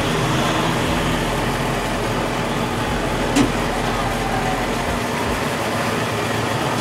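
Steady mechanical drone of kitchen machinery, a fan-like rush with a low hum, with one short click about three and a half seconds in.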